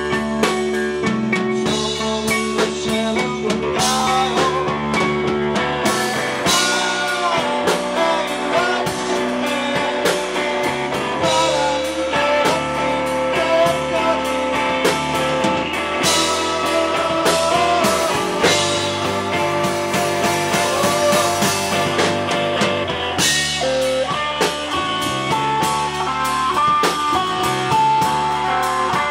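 Rock band playing live: electric guitar and electric bass over a drum kit, with a voice singing at times.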